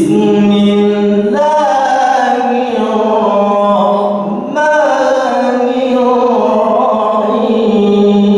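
A man reciting the Quran solo in melodic tilawah, holding long, ornamented notes that slowly bend in pitch. He pauses briefly and glides up into a new phrase about four and a half seconds in.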